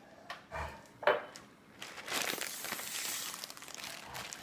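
Gallon-sized plastic bag of marinated beef crinkling as hands press the air out of it: two short sharp crinkles, then a longer stretch of rustling from about two seconds in.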